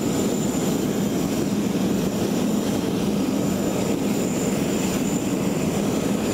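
Steady noise of jet aircraft engines running on an airport apron, with a thin high whine held throughout.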